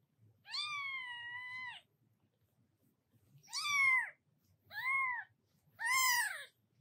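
Newborn kitten mewing: one long, high-pitched call, then three shorter cries that rise and fall in pitch.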